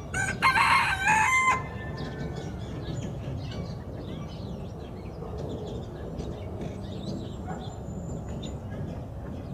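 A rooster crows once near the start, a short crow of about a second and a half that ends on a held note. A steady low background noise with faint bird chirps follows.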